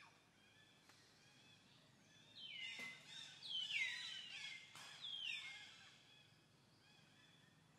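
Three high animal calls in quick succession around the middle, each sliding down in pitch, over faint steady chirping in the background.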